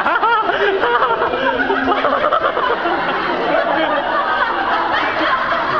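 Crowd of onlookers chattering and laughing, many voices overlapping without a break.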